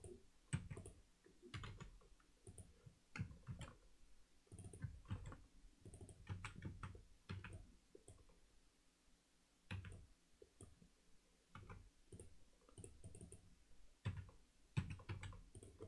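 Faint, irregular clicks of a computer mouse and keyboard keys being pressed while working in software.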